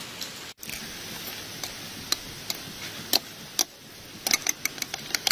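Metal spoon clinking against a bowl while beating eggs: a few scattered taps at first, then quick, regular clicks, about four or five a second, near the end.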